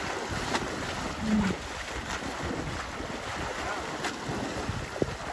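Water splashing and sloshing as elephants wade through shallow water, with wind buffeting the microphone. A brief low-pitched sound stands out about a second in, and a sharp click comes near the end.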